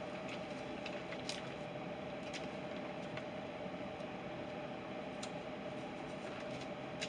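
A few light, sharp clicks of small plastic Lego pieces being handled, over a steady background hum.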